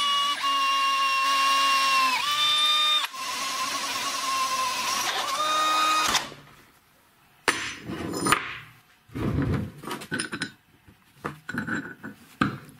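Electric drill running, its motor whine dipping in pitch a few times under load as a twist bit cuts through a steel plate, then stopping about six seconds in. After that, a scatter of short knocks and clinks of metal parts being handled.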